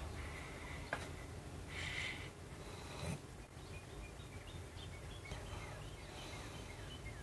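Quiet room with a few soft breathy hisses from a person breathing out, the clearest about two seconds in, and a faint click about a second in.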